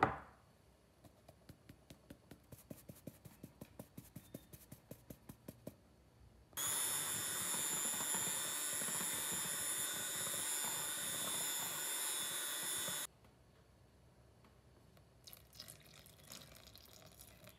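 A metal mesh sieve tapped about four times a second as flour is sifted into a glass bowl, then an electric hand mixer runs steadily for about six seconds, beating the flour into the batter, and stops suddenly. Near the end, faint sounds of liquid being poured in.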